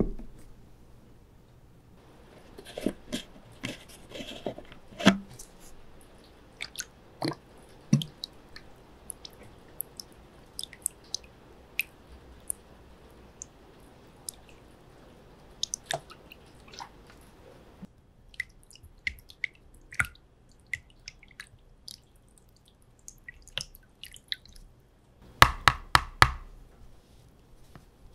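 Stone inkstone lids and stones clacking and knocking as they are handled, with many small ticks and drips of water falling into a stone inkstone. A quick cluster of louder knocks comes near the end.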